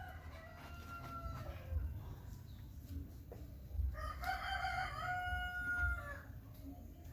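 Rooster crowing twice: a shorter crow at the start, then a longer, louder one about four seconds in.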